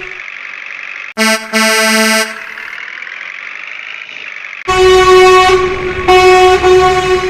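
Truck-style horn honking: a short double honk about a second in, then two long blasts near the end, over a faint wavering tone in between.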